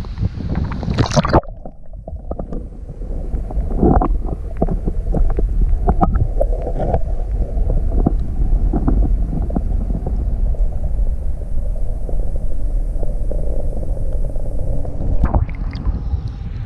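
Muffled underwater sound from a camera held under the water of a clear creek: a steady low rumble with gurgling and irregular knocks. All the higher sounds cut off suddenly about a second and a half in as it goes under, and come back near the end as it comes out.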